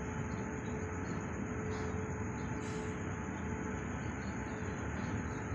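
Freight train of container wagons rolling past on the rails, a steady rumble of wheels with a steady high whine over it.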